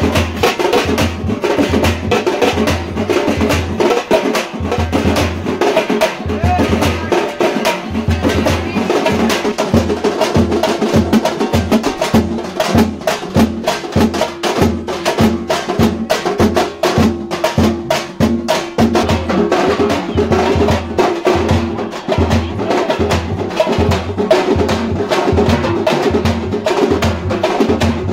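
A live festival drum band playing. A big bass drum beats steadily, about twice a second and quickening after several seconds, under a fast, dense clatter of stick-struck drums.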